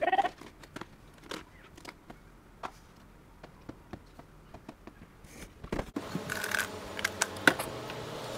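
A brief squeak at the start, then scattered small clicks, ticks and scrapes of handling noise. The background hiss rises about six seconds in, with a sharper click near the end.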